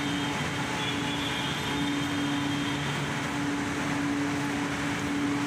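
Steady machinery hum of a metro station concourse, with a low drone that drops out briefly a few times.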